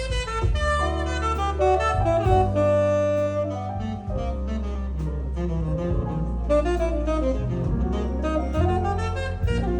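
Jazz saxophone playing a flowing melody of quick notes over a sustained bass line.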